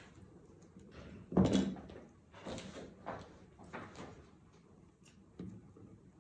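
Fabric and pattern pieces being handled and moved on a cutting table. There is a knock and rustle, the loudest sound, about a second and a half in, then a few short sliding swishes and a small click near the end.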